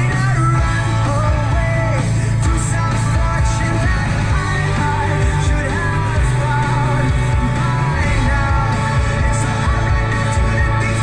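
Rock music with a singing voice, playing steadily throughout.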